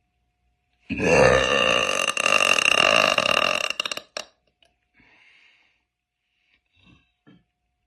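A woman's long, deep burp lasting about three seconds, starting about a second in, followed by faint breaths.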